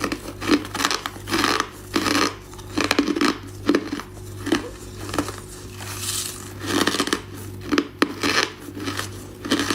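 Ice being chewed close to the microphone: a run of crunching bites, roughly one or two a second, with sharp cracks among them, over a steady low hum.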